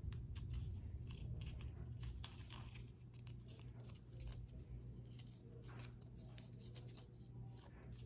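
Faint crinkles and small clicks of a painted cardboard toilet-paper-roll ring being bent and creased by hand into a heart shape, over a steady low hum.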